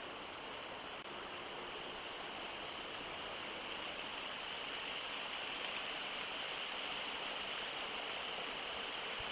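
Steady outdoor ambient hiss at an animal enclosure's live-cam microphone: an even noise with a brighter high band, growing slightly louder, with a few faint ticks.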